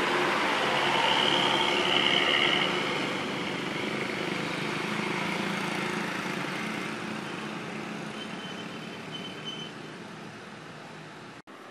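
Hino RN 285 bus's rear-mounted diesel engine running as the bus passes close by. It is loudest in the first few seconds, then fades steadily as the bus pulls away.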